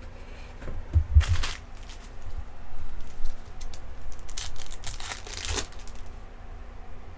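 Foil trading-card pack wrapper crinkling and being torn open by hand, in two crackly bursts: one about a second in and a longer one from about four to five and a half seconds in.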